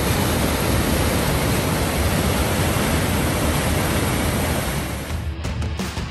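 Steady, loud roar of a waterfall's white water rushing down a granite chute. Music comes back in near the end.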